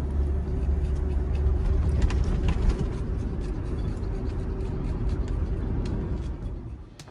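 A motor vehicle driving, with a steady low road-and-engine rumble and scattered small knocks, fading out near the end.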